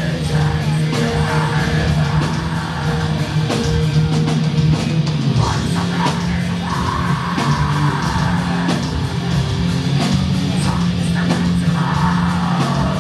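Black metal band playing live: distorted electric guitars, bass and drums, with a harsh shouted vocal coming in around the middle and again near the end. Heard through a club PA from among the audience.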